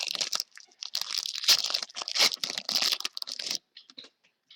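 Foil trading-card pack wrapper crinkling and tearing as it is opened, in a run of rustling bursts that stops about three and a half seconds in.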